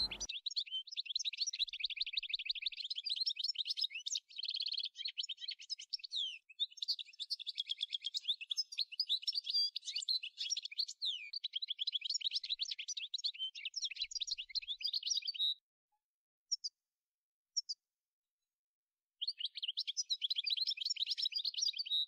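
European goldfinch singing: a rapid twittering of high notes that runs on for about fifteen seconds, then two short single notes and a pause, before the twittering starts again near the end.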